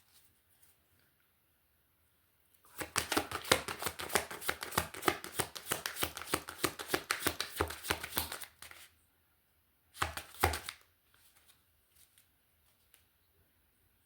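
Runes being shuffled before the next rune is drawn: a rapid clatter of many small clicks that starts about three seconds in and lasts about six seconds, then another short clatter around ten seconds in.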